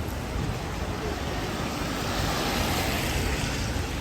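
Traffic on a wet city street: a vehicle's tyres hiss on the wet road as it passes, swelling from about halfway through, over a steady low rumble of engines.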